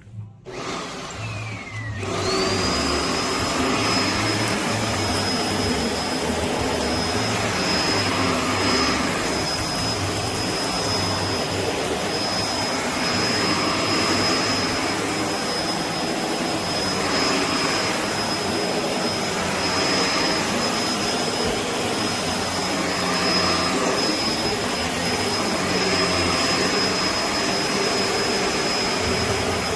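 Kenmore BU4018 bagged upright vacuum cleaner's motor starting up about two seconds in and then running steadily. Its high whine settles to one pitch, and the rush of air swells and eases every few seconds.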